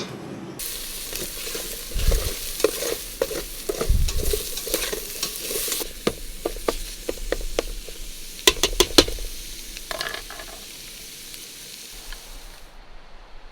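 Food frying in a pan on a camp stove with a steady sizzle, stirred with a utensil that clicks and scrapes against the pan many times. The sizzle dies away shortly before the end.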